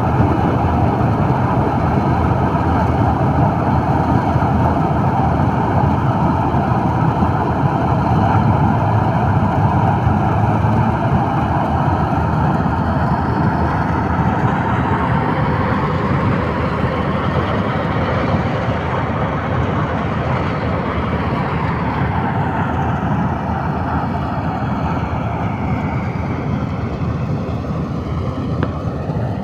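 Preet 987 combine harvester running under load while harvesting paddy: a loud, steady engine and machinery drone that eases off a little in the second half.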